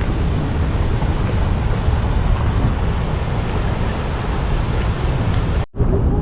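Strong wind buffeting the microphone, a dense steady low rumble, with a brief dropout near the end.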